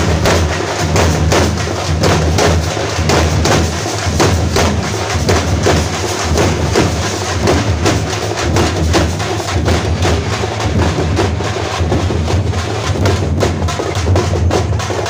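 A troupe of parai (thappu) frame drums beaten together in a fast, dense thappattam rhythm, with sharp slaps following one another without pause.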